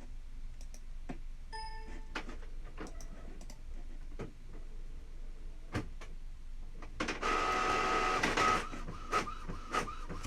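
A printer running: scattered light clicks and a short beep early on, then from about seven seconds in the steady whirring of the print mechanism with a held whine.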